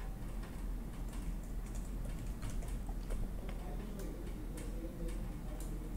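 Faint, irregular clicks of a computer mouse and keyboard being used, over a low steady hum.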